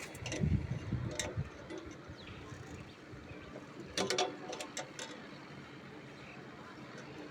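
Scattered sharp clicks and knocks: a cluster with a low rumble in the first second or so, then another cluster about four seconds in.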